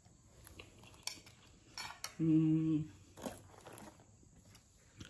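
Metal spoon clinking and scraping lightly against a plate of biryani, a few scattered clicks, with a short low hum of about half a second a little after two seconds in.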